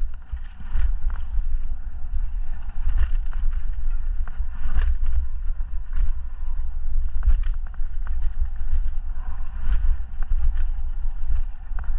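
Heavy, uneven wind rumble on the microphone with scattered knocks and rattles, as from riding over a rough trail.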